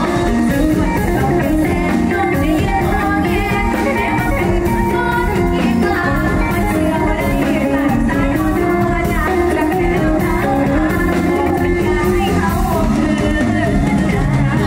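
A girl singing a Thai song into a microphone through the stage PA, over loud amplified band music with guitar, during a sound check.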